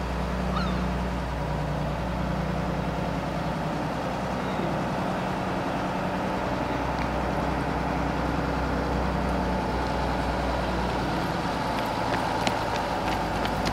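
Heavy diesel vehicle engine idling steadily, with a few sharp clicks near the end.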